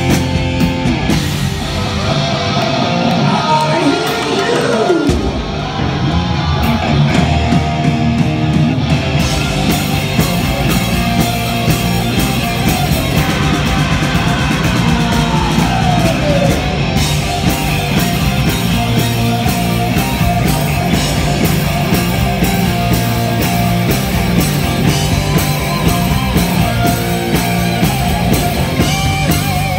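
Live rock band playing loud, led by a Les Paul-style electric guitar whose lead line includes bent notes that slide up and down in pitch.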